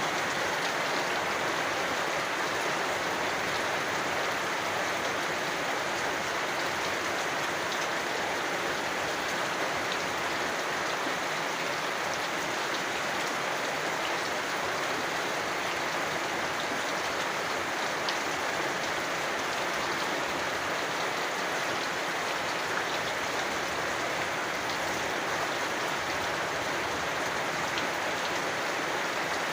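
Steady rain falling, an even unbroken patter with no let-up.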